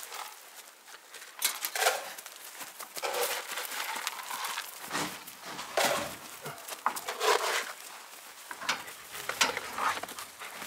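Irregular clatter, knocks and rustling as gear is handled in the back of a pickup truck.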